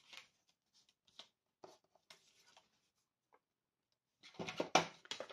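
Faint rustles and light taps of cardstock being handled, then a little over four seconds in a louder series of hard plastic clatters and knocks as a paper trimmer is put down and handled on the craft board.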